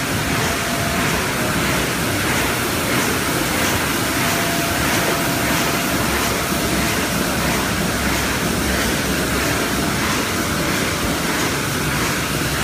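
Fully automatic creasing and die-cutting machine running steadily: a dense, continuous mechanical noise.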